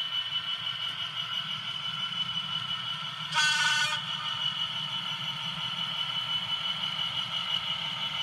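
Model Class 66 diesel locomotive running slowly on the track with a steady high electric hum, and a short horn blast about three seconds in.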